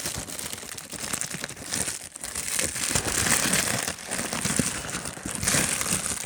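Shipping packaging crinkling and rustling as it is handled and opened, a steady run of small crackles.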